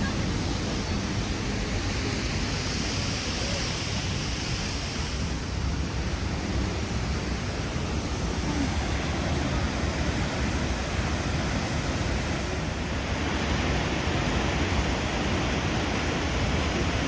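Steady, even rush of High Force waterfall on the River Tees, a large plunge of falling water.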